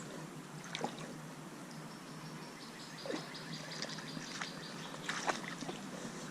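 Shallow creek water trickling, broken by a few short splashes of someone wading or reaching into the water. A faint, thin high note runs through the middle.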